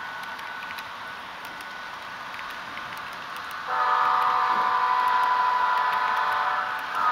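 HO scale model freight train rolling by with a low running hiss and small clicks from the wheels and track. About three and a half seconds in, a loud locomotive horn of several tones sounds and holds for about three seconds. It breaks briefly, then sounds again near the end.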